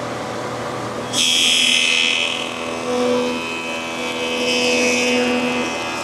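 Wide jointer (facer) running with a steady hum while a board is fed across its cutterhead. A louder cutting noise comes in suddenly about a second in and eases off over the next second, with lighter cutting after.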